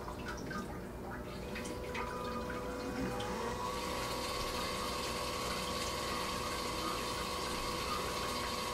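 BioBidet Bliss BB-2000 electric bidet seat running its feminine wash: a steady hum of the water pump and nozzle with spraying water. The hum's pitch rises about three seconds in, then holds steady.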